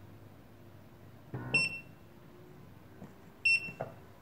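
RENPHO RP-FMO79R foot massager's touch control panel beeps twice, about two seconds apart, as its buttons are pressed, each beep with a soft knock. A faint steady hum runs underneath.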